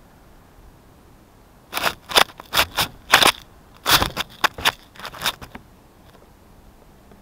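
A run of about a dozen short scraping and rustling bursts, something rubbing against the camera body right at its microphone, starting a second and a half in and stopping about two seconds before the end.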